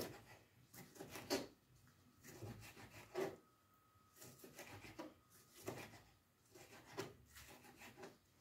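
A kitchen knife slicing through tomatoes on a cutting board: faint, irregular strokes of the blade scraping and tapping on the board. The cook calls the knife not very sharp.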